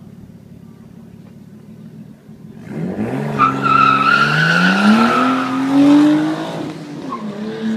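Datsun S30 Z hill-climb car with an RB20DET turbo straight-six, holding steady revs on the start line and then launching hard about three seconds in. The revs climb with the tyres squealing, then fall sharply at a gear change near the end before climbing again.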